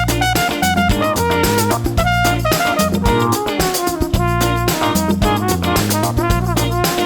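Upbeat jazzy background music with brass horns over a drum kit and a steady beat.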